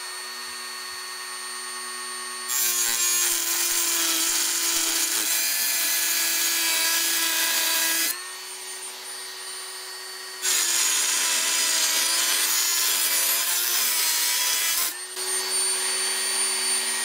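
Dremel rotary tool with a 456 EZ Lock metal cutting disc running with a steady high whine, making two cuts of about five seconds each that bring loud grinding noise. Near the end it is switched off and the whine falls away.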